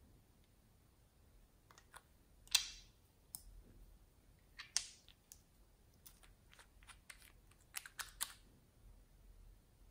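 Scattered light clicks and taps from handling a small glass nail-polish bottle and its brush cap over a tub of slime, with two louder short crackles about two and a half and five seconds in and a quick run of taps near the end.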